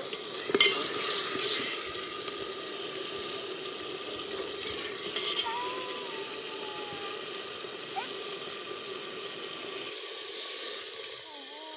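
A metal ladle clanks once, sharply, against a metal pot of duck curry simmering on a wood fire, about half a second in. Under it runs a steady hiss and hum, with a few short gliding chirps here and there.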